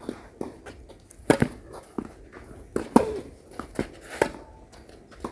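Tennis ball struck by rackets in a rally on a clay court: three sharp hits, the loudest sounds here, roughly one to one and a half seconds apart, with fainter ticks between.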